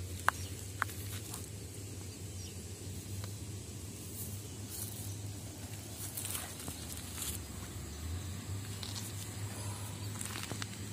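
Footsteps on a riverbed of gravel and rounded stones under a steady low rumble, with two sharp clicks in the first second and a few faint ticks later.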